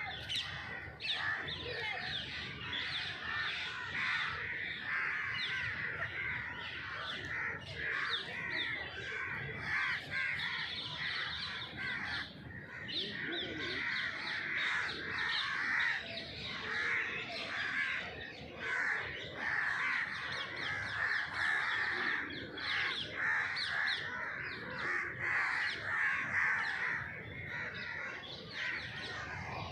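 A flock of birds calling all at once: a dense, continuous chorus of many short, overlapping calls.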